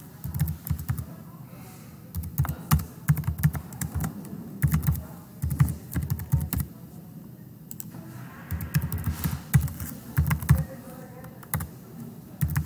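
Typing on a computer keyboard: quick keystroke clicks in bursts, with short pauses between them.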